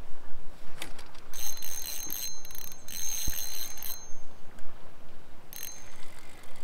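High metallic ringing from the fishing tackle as a fish takes the line: a long burst of about two and a half seconds, then a short one near the end.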